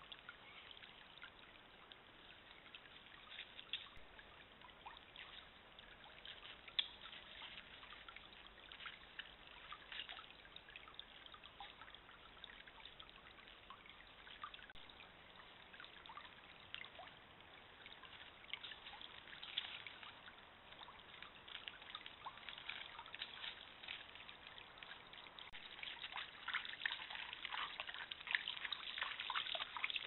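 Shallow stream trickling over stones, a quiet steady babble dotted with small ticks and drips that grow busier near the end.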